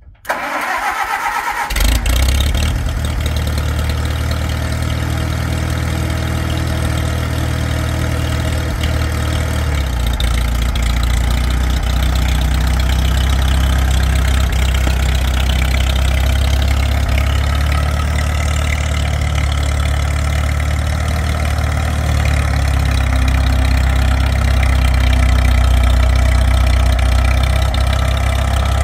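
1955 Farmall 300 tractor's four-cylinder engine is cranked by the starter and catches about two seconds in, then runs steadily while the tractor is driven. The engine note shifts about ten seconds in.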